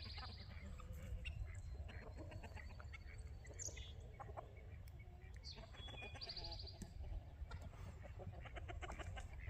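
A mixed flock of farmyard poultry calling: scattered short clucks and chatter, with a couple of higher buzzy calls, heard faintly over a steady low rumble.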